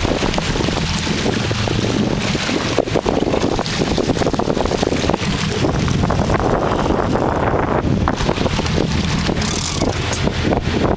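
A sportfishing boat's engine running steadily as a low drone, with wind buffeting the microphone.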